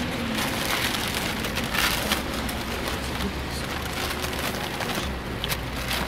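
Steady crackling and rustling of things being handled and rummaged through, a dense run of small crackles without a voice.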